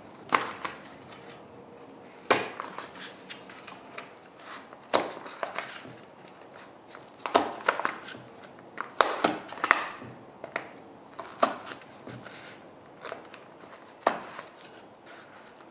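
An awl punching sewing holes through a stack of paper pages along the fold, the point tapping into the wooden board beneath. About ten short, sharp pops come at uneven intervals, one for each marked hole.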